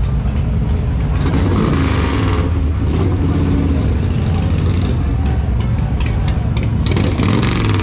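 Motorcycle engines rumbling, a continuous low drone of many bikes running in the street.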